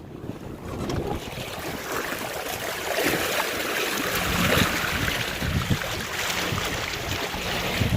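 Wind and rushing water on a small sailboat heeled over in strong gusts, with wind buffeting the microphone in irregular low rumbles. The rush swells about halfway through.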